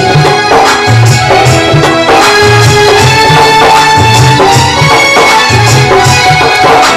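Instrumental introduction of a Hindi bhajan: a melody line over a steady rhythmic drum beat with shaker-like percussion.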